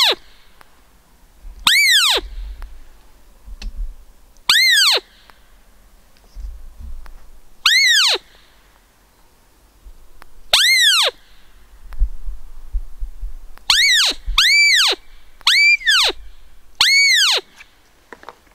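Roe deer call imitating a doe's fiep to lure a roebuck in the rut: eight loud, high squeaks, each rising then falling in pitch. The first four come a few seconds apart, and the last four follow in quicker succession near the end.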